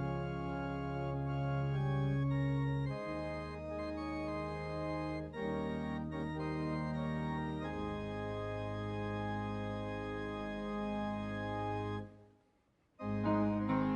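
Organ playing slow, sustained chords that change every few seconds; the sound cuts out suddenly for about a second near the end, then comes back.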